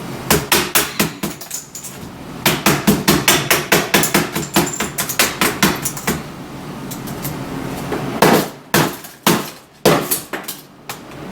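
Rapid, repeated blows on a MacBook laptop's keyboard and casing, hard impacts several a second in runs, with a pause in the middle and a few heavier strikes near the end: the laptop being smashed on purpose.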